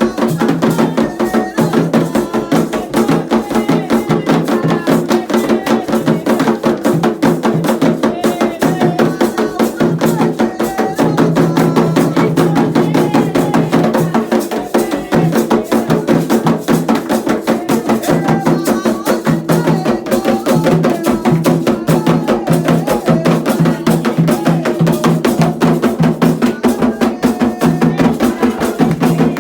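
Candomblé ceremonial music: drums playing a fast, steady rhythm with voices singing over them.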